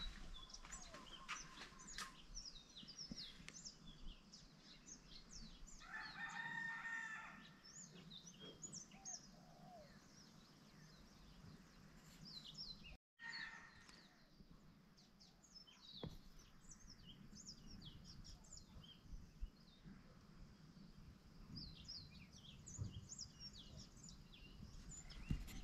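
Faint small birds chirping throughout, with a rooster crowing once about six seconds in and again briefly a little before the middle.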